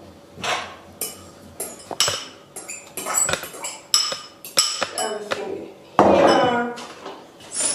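A metal spoon clinking and scraping against glass bowls as chopped vegetables are scraped from a small glass bowl into a large glass mixing bowl: a quick series of clinks and taps.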